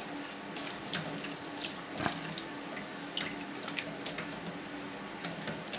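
Soft splashing, squishing and dripping of whey as gloved hands press sulguni cheese curds together into one mass in a stainless steel pan. A few small clicks and splashes are scattered through it.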